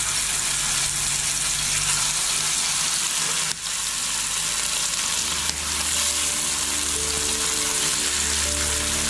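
Seasoned chub pieces frying in hot oil in a pan, a steady dense sizzle as more pieces are laid in.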